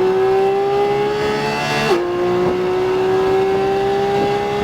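Porsche 718 Cayman GT4 RS's naturally aspirated 4.0-litre flat-six accelerating under full throttle, its note climbing steadily. A quick upshift drops the pitch about two seconds in, and then it climbs again.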